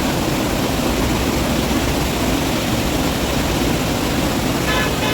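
Steady, loud rushing noise of heavy rainfall.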